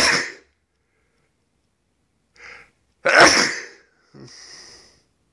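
A man sneezing twice, about three seconds apart, then a faint hiss. The sneezes are set off by something in the air that he says he can't place.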